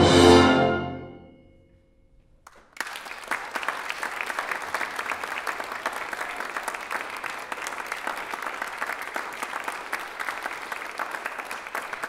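A brass choir's final chord rings out and fades away in the hall's echo over the first couple of seconds. After a moment of near silence, an audience bursts into applause that keeps going.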